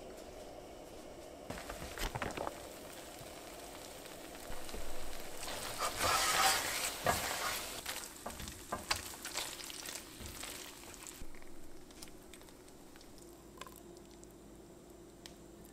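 Noodles in a thick, creamy cashew Alfredo sauce being stirred and tossed with a silicone spatula in a nonstick frying pan: wet, sticky stirring strokes, loudest about six seconds in, dying away after about eleven seconds. A steady low hum runs underneath.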